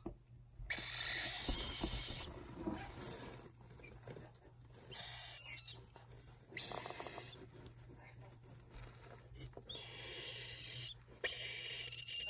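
Unweaned medium cockatoo chick giving raspy, breathy begging calls, several bursts of about a second each.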